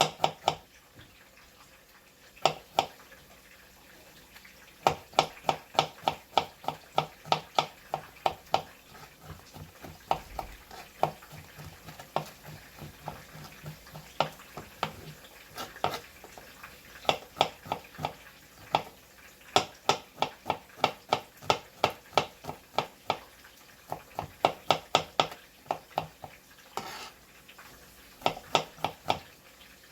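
A utensil clicking against a bowl in quick runs of sharp taps, several a second with short pauses between runs, as a dressed salad is tossed and mixed.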